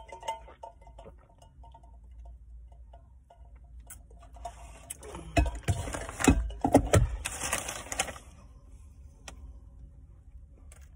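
Paper sandwich wrapper rustling and crinkling for a few seconds about halfway through, with several thumps as it is handled. Faint small clicks come before it.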